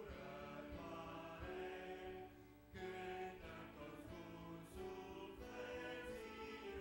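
Church congregation singing a hymn together in long held notes, pausing briefly between phrases about two and a half seconds in.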